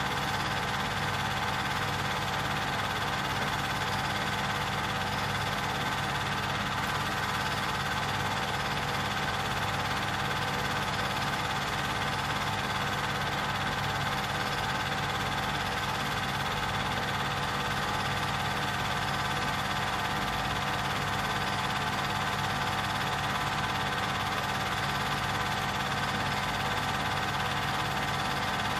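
Film projector running: a steady mechanical motor hum with several fixed tones that never changes.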